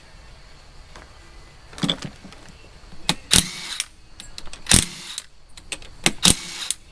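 Cordless ratchet running in several short bursts as it loosens the 10 mm rocker arm bolts on a Hellcat Hemi V8, with sharp metallic clicks and clinks between the bursts.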